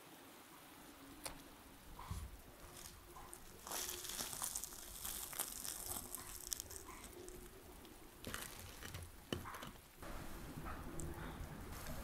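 A crusty white bread loaf being torn apart by hand, its crust crackling and crunching in two bouts.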